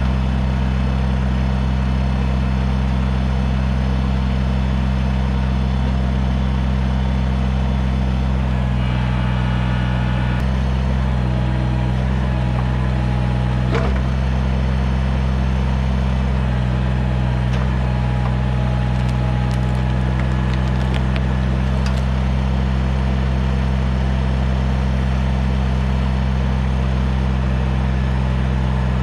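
Kubota BX compact tractor's small diesel engine running steadily while working a backhoe. The engine note shifts under load about a third of the way in, and a few sharp cracks come through around the middle.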